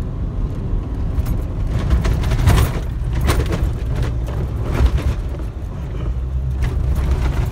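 Nissan Navara NP300 ute climbing a soft sand dune track, heard from inside the cab: a steady low engine drone under load, with repeated knocks and rattles as the vehicle bounces over the ruts.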